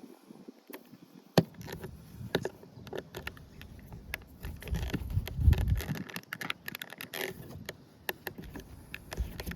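Irregular clicks, knocks and scraping from hands-on work with tools and car trim, with one sharp knock about a second and a half in and a stretch of rumbling handling noise about halfway through.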